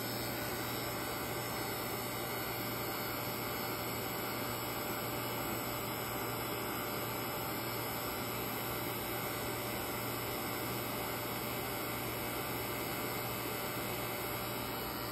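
Refrigeration vacuum pump running steadily with a low hum, pulling a deep vacuum on a refrigerator's sealed system in the mid-400 micron range.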